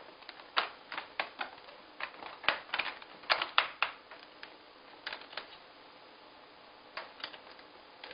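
Irregular sharp clicks and knocks of hard plastic as a hard-shell gun case and its latches are handled. The clicks come thickly for the first few seconds, then only a few scattered ones.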